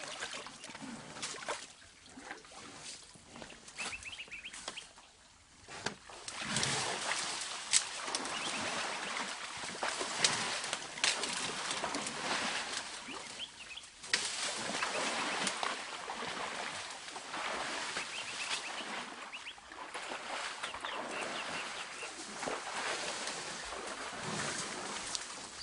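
Dense bamboo and undergrowth rustling and snapping as elephants push through a thicket: a steady crashing hiss with sharp cracks, much louder from about six seconds in.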